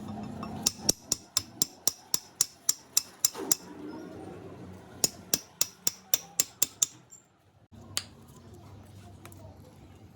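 Quick series of sharp, hard taps, about four a second, in two runs of roughly three and two seconds, with one last tap near the end: tapping on hard parts during a ceiling fan repair.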